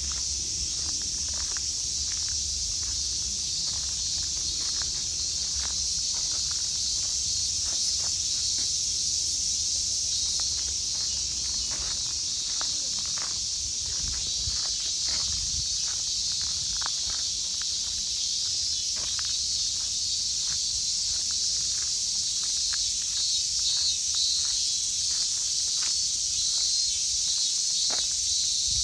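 A steady, shrill insect drone, with irregular footsteps going on through it.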